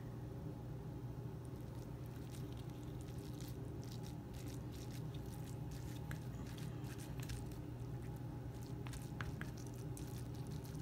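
Metal spoon pressing and scraping fried rice packed into a plastic flower-shaped cookie cutter, making faint soft squishes and small clicks over a steady low hum.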